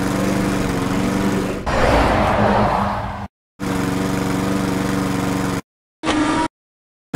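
Motor-vehicle engine sound effect running steadily at idle, with a burst of hiss about two seconds in. It cuts off abruptly a few times, leaving short silent gaps near the end.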